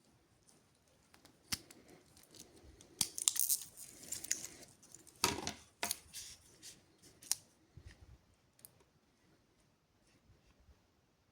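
Hands handling a wristwatch and its packaging: scattered sharp clicks and short bursts of rustling, loudest about three seconds in and again near the middle.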